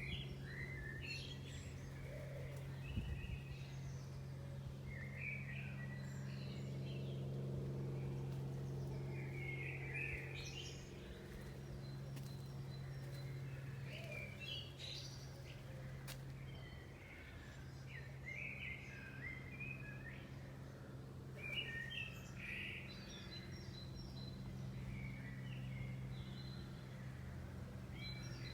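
Songbirds chirping and twittering in short phrases every second or two, over a steady low hum.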